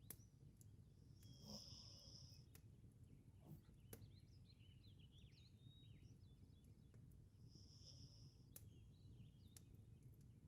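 Faint breathing of a sleeping Labrador retriever, with two short hissing breaths about six seconds apart, over a low steady hum. Sharp crackling clicks from a wood fire come now and then, and faint squeaky chirps sound in the middle.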